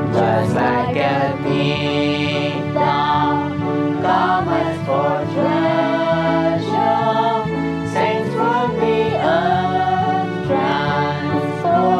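A congregation singing a worship hymn together over a sustained keyboard accompaniment with a steady bass line.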